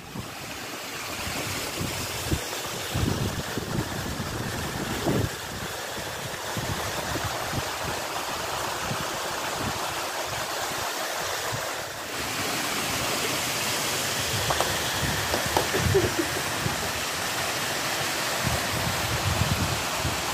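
Small waterfall splashing down a rocky stream bed, a steady rushing of water, with a few low bumps on the microphone.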